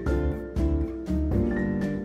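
Instrumental background music with a steady beat and a bright melody of short notes.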